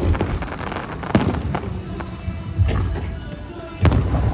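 Fireworks going off in sharp bangs, each with a short echoing tail: one at the start, one about a second in and a loud one near the end. Music plays underneath.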